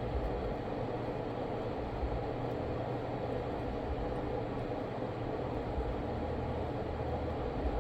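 Steady low hum and hiss of background noise, even throughout, with no distinct events.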